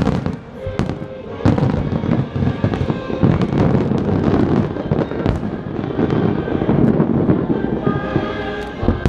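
Barrage of aerial fireworks: a rapid, dense run of booms and crackling bursts, with the show's music playing behind and coming through again near the end.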